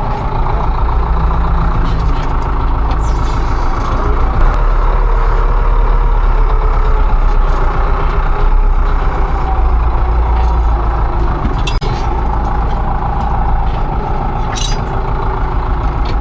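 Engine of farm tilling machinery running steadily under load while working vineyard soil, with a couple of brief sharp clinks in the second half.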